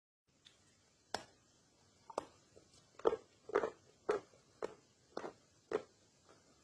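Crunchy bites and chews of dried cornstarch chunks: about eight sharp crunches, roughly one every half second, loudest in the middle.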